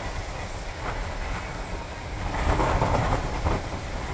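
Car driving on a wet road, heard through an open side window: a steady rumble of tyres and wind noise with a few faint knocks, growing louder a little past halfway.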